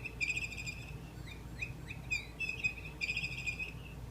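Pet bird chirping and chattering: short rising chirps alternating with several quick, warbled runs of notes.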